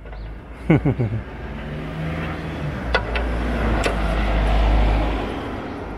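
A passing road vehicle, its rumble swelling to a peak about four to five seconds in and then fading. Two sharp clicks come near the middle, from the socket wrench cracking the sump plug loose.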